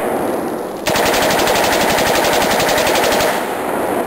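Norinco MAK-90 AK-pattern rifle in 7.62×39 firing a long rapid string of shots. The string starts about a second in, runs for about two and a half seconds, and its echo dies away near the end.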